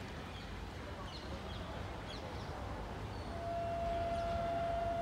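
Birds chirping over the low rumble of a passing train. About three seconds in, a train horn starts a steady, single-tone blast that holds, and everything gets louder.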